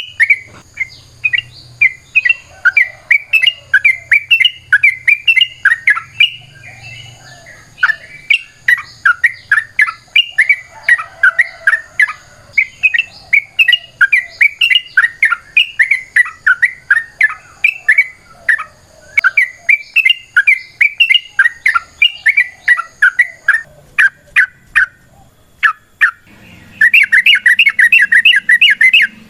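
Yellow-vented bulbul (trucukan) singing: long runs of quick, bubbly chattering notes. There is a brief pause about 25 seconds in, then a very fast, dense burst of notes near the end.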